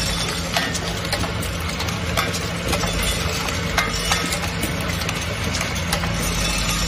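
Effervescent tablet tube filling machine running: a steady mechanical hum with scattered light clicks and clinks as tablets and plastic tubes move through it.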